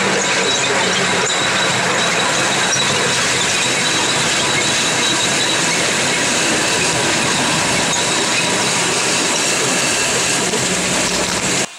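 Ride-on miniature train running along its narrow-gauge track, heard from on board: a loud, steady rolling rumble of wheels on rail with a thin, steady high whine through it. It cuts off suddenly near the end.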